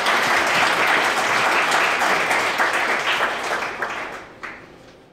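Audience applauding, dense at first, then thinning and dying away over the last couple of seconds with a few last claps.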